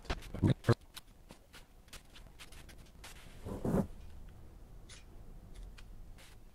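Steel dip pen nib scratching and tapping on drawing paper in short, scattered strokes. There are two louder knocks about half a second in, and a softer, longer low sound a little past halfway.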